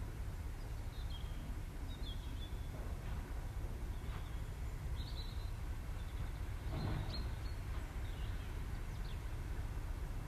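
Small birds chirping now and then over a steady low rumble, with one brief louder noise about seven seconds in.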